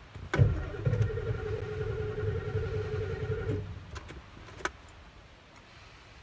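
Ford 7.3 Power Stroke diesel being cranked on its starter motor for about three seconds: a steady starter whine over uneven low chugging, which stops suddenly. A couple of sharp clicks follow.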